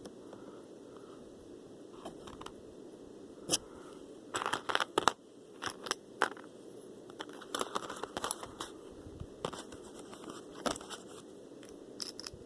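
Plastic packaging crinkling and tearing in short bursts, with scattered sharp clicks and crackles as a small unboxed item is unwrapped and handled.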